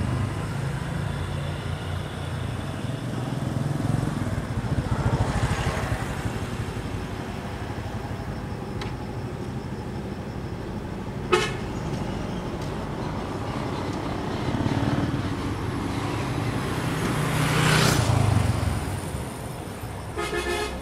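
Road vehicles passing, their engine and tyre noise swelling and fading twice, with a single sharp knock about halfway and a short horn toot near the end.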